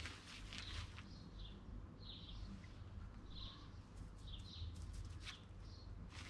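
Faint bird chirps, about half a dozen short calls spread through the quiet, with a couple of brief rustles near the start and about five seconds in.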